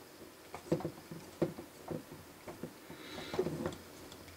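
A small screwdriver and screw clicking and scraping against the model truck's ladder-frame parts as the screw is worked in. There is a string of irregular light clicks, with a short scrape about three seconds in, while the screw won't catch in its hole.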